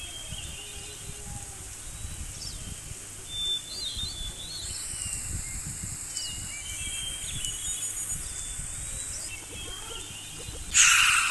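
Small birds chirping in short scattered calls over a steady, low outdoor nature ambience. A loud, sudden harsh sound cuts in near the end.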